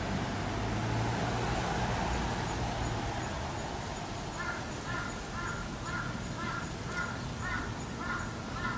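A crow cawing in a run of about ten calls, roughly two a second, starting about halfway through. A low hum fades out over the first few seconds.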